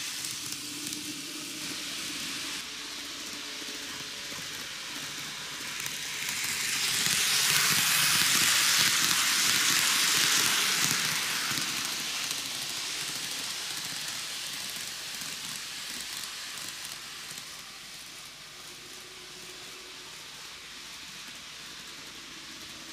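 N-gauge model electric train (TOMIX 733 series 3000) running on its track: a steady hissing rattle of metal wheels on the rails with a faint motor hum. It swells to its loudest about seven to eleven seconds in as the train passes close, then fades as it moves away.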